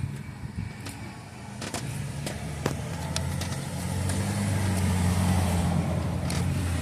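A motor vehicle's engine running with a steady low hum that grows louder over the first few seconds and then holds, with a few sharp clicks early on.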